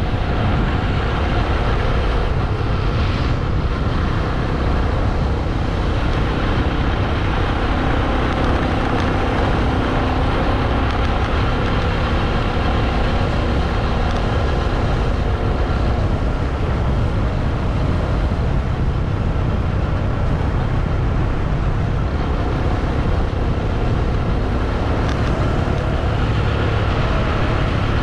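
Honda motorbike engine running steadily at cruising speed, with a constant rush of wind and road noise over the on-bike microphone.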